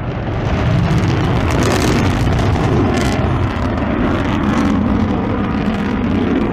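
Rocket roar: a loud, continuous rumble that swells over the first second and then holds steady.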